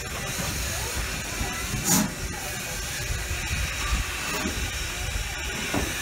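Steam locomotive hissing steadily over a low rumble as it eases back to couple onto the coaches after a missed coupling, with one brief louder burst about two seconds in.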